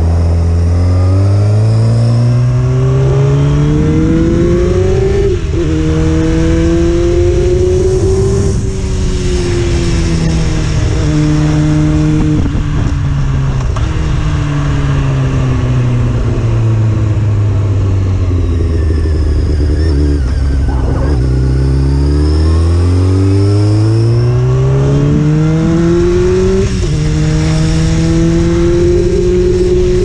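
Honda CBR600F4's inline-four engine under way, rising in pitch through the gears with quick drops at two upshifts, about five and eight and a half seconds in. It then falls in pitch through a long slowdown with a couple of short blips, rises again to another upshift near the end, and holds steady.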